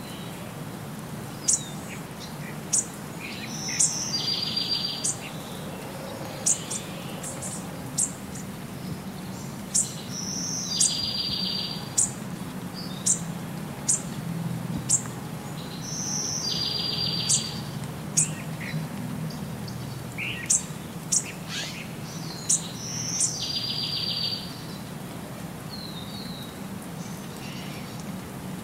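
Birds chirping and singing: short sharp high chirps about once a second, and the same buzzy high phrase recurring about every six seconds, over a faint low hum.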